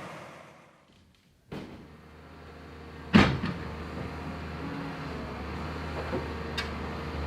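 Heavy machine engine running with a steady low hum, with one sharp, loud knock about three seconds in and two lighter knocks near the end. In the first second and a half the sound fades to near silence, then cuts back in abruptly.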